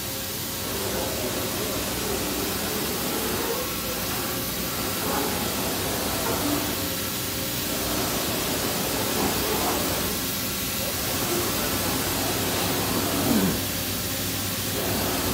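Steady hiss and hum of an OKK HM1250S horizontal machining center running under power, with a brief louder sound near the end.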